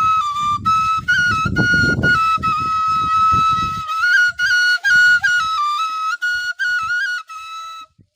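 Bansuri, an Indian bamboo flute, playing a high melody of held notes with quick ornamental steps between them, with short breaks for breath, stopping near the end. Low rumbling noise sits under the first half.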